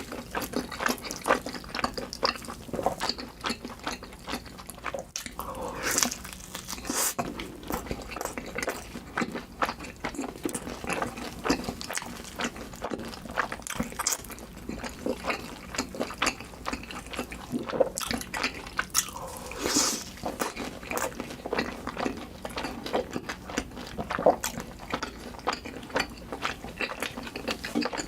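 Close-miked eating: continuous wet chewing and mouth-smacking, a dense run of sticky clicks with no pauses.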